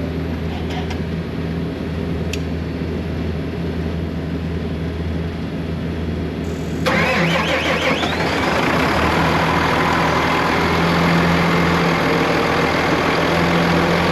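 Cummins diesel engine of a PistenBully snow groomer running steadily, on a test run to check the refitted turbo charge-air-cooler tube for leaks. About halfway through it suddenly gets louder, with a brief rising whine.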